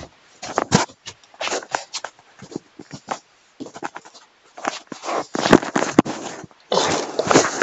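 Handling noise: irregular rustling and scraping as the phone and nearby objects are moved, in uneven bursts, with a few sharp clicks about five to six seconds in.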